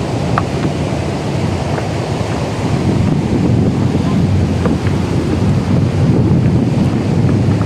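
Surf breaking on a cobble beach, a steady rushing rumble mixed with wind buffeting the microphone; it swells a little about three seconds in.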